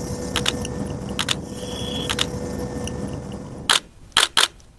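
Steady engine and rotor noise inside a helicopter cabin, with a camera shutter clicking three times, each click doubled. The cabin noise cuts off near the end, and three louder sharp clicks follow.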